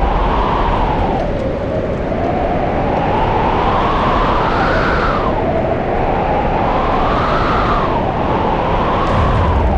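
Loud rushing, rumbling sound effect for the ground shaking, with no speech. It swells and falls in slow waves every two to three seconds.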